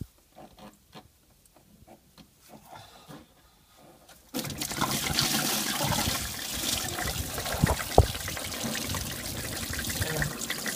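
A few faint clicks as the hose is worked loose. About four seconds in, engine coolant suddenly gushes out of a Ford Explorer's radiator outlet and the pulled lower radiator hose, pouring and splashing steadily as the cooling system drains, with one sharp knock partway through.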